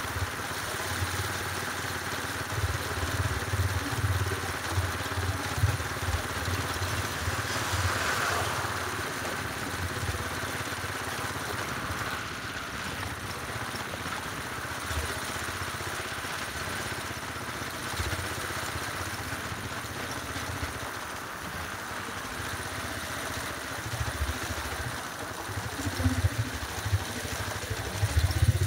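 Motorcycle engine running while under way on the road, with an uneven low rumble that comes and goes.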